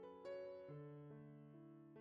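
Quiet background piano music: soft notes struck about every half second, each ringing on under the next.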